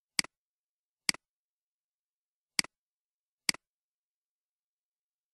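Four computer mouse clicks, each a quick double tick of the button going down and coming back up, with dead silence between them.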